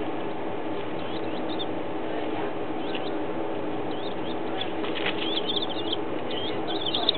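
Baby chicks peeping: short, high, falling cheeps, a few at first and many more from about halfway through, over a steady background hum.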